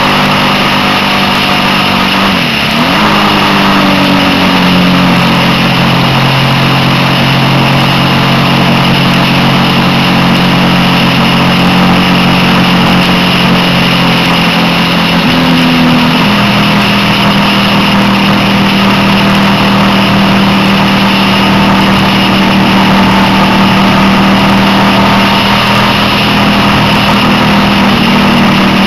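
Motorcycle engine running under way at steady road speed, with heavy wind rush on the microphone. The engine note dips and recovers a couple of seconds in, then settles at new steady pitches about five seconds in and again just past halfway.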